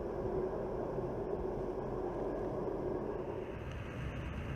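Steady rumble of a Boeing C-17 Globemaster III's four turbofan engines in reverse thrust after touchdown, blowing snow forward. About three seconds in the sound shifts and a higher hiss joins the rumble.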